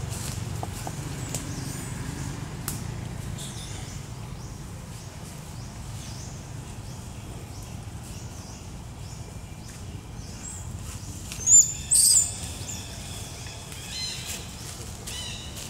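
Outdoor ambience with a faint steady low hum and scattered high-pitched animal chirps; two short, shrill chirps about three quarters of the way in are the loudest sounds, followed by a few fainter falling calls.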